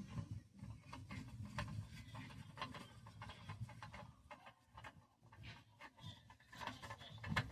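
Faint, scattered light clicks and taps of hands and tools working under a car during an oil change, over a low rumble.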